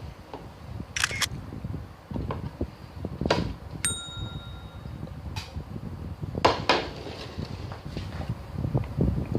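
Close-up eating sounds of a person chewing and sucking on spicy adobo chicken feet: steady crackly chewing with several sharp clicks and smacks, and one short ringing clink about four seconds in.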